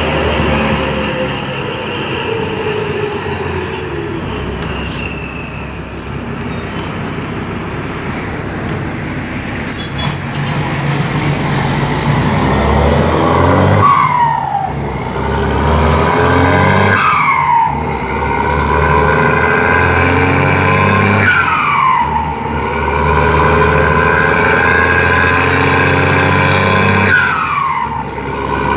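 Turbo-diesel bus engine with a turbocharger modified to whistle ('howl'). A high whine falls away in the first few seconds, then comes back as a steady high whine over the engine as the bus pulls hard from about twelve seconds in. Its pitch drops sharply at each of four gear changes.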